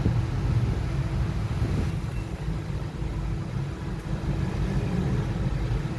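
A steady low mechanical rumble, like a running engine or motor, with a faint steady hum above it.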